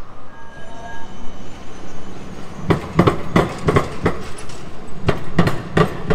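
A low-floor tram passing close by, its steel wheels clacking over track joints: a dozen or so sharp, unevenly spaced clacks starting about two and a half seconds in, over general street noise.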